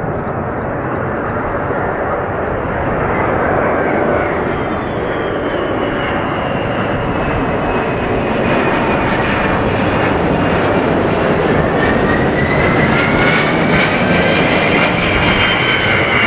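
Boeing 747-200 freighter's four jet engines on final approach, passing low overhead: loud jet noise with whining tones that shift in pitch. It grows louder through the pass, and one whine climbs and then starts to fall near the end as the aircraft goes by.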